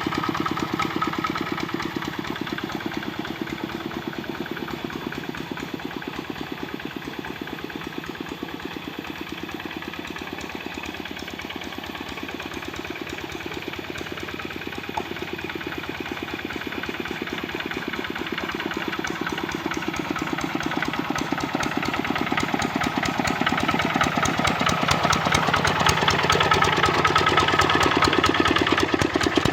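Kubota RD65 single-cylinder diesel engine of a hand tractor running steadily under load while pulling a harrow, its firing beat even throughout. It grows louder over the last third.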